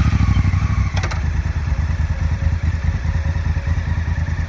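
Adventure motorcycle's engine idling steadily just after starting, with a single click about a second in.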